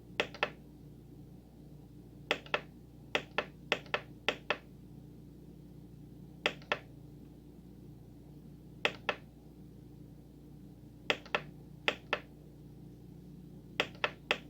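Front-panel buttons of a Korg N264 keyboard being pressed while paging through sound parameters: sharp plastic clicks, mostly in quick press-and-release pairs, about a dozen at uneven intervals, over a faint steady hum.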